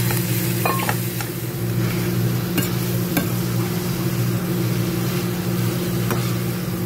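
Lamb kidneys and sliced peppers sizzling in a frying pan, with a few sharp scrapes and taps as a slotted spatula stirs them. A steady low hum runs underneath.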